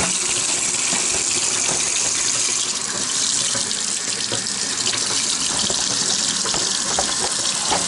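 Kitchen faucet running cold water steadily into the sink, splashing over a raw pork chop being rinsed under the stream.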